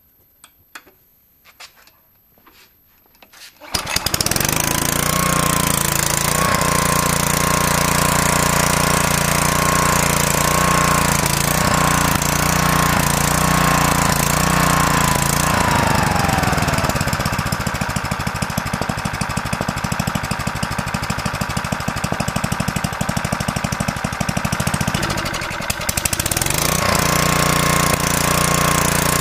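A few light clicks, then a small Tecumseh engine on a pressure washer starts about four seconds in and runs steadily. Midway its note falls and it runs rougher with a fast pulsing beat for about ten seconds, then settles back into the earlier steady running near the end.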